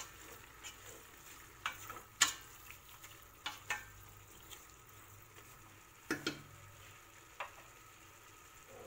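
A wooden spoon stirs chopped tripe frying in olive oil with onion in a stainless steel pressure cooker. Scattered sharp knocks and scrapes of the spoon against the pot sit over a faint sizzle, and they stop about three-quarters of the way through.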